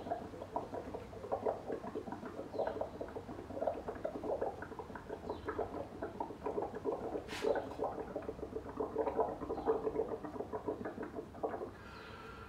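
Air blown slowly through a drinking straw into a jug of soapy underglaze, the liquid bubbling and gurgling in a dense crackly patter as foam builds up over the rim. The bubbling pauses briefly near the end.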